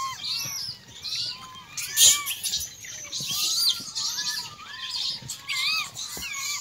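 A dense chorus of many overlapping short, arching chirps and calls, with higher chirping above and a few faint clicks.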